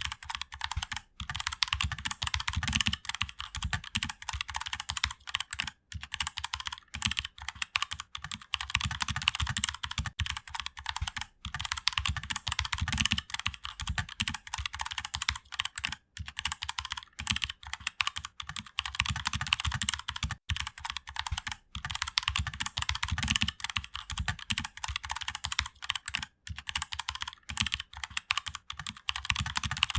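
Computer keyboard typing: fast, continuous keystrokes with only short pauses, as a message is typed out.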